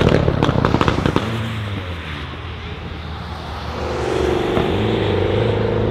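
Race-prepared Mitsubishi Lancer's exhaust popping and crackling off the throttle for about the first second, then its engine note swelling and running steadily as it accelerates away, about four seconds in.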